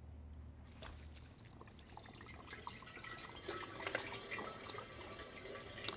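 Engine coolant dripping and trickling from a disconnected hose at the coolant after-run pump into a drain pan. It comes out only slowly because the coolant cap, still closed, holds a vacuum on the system.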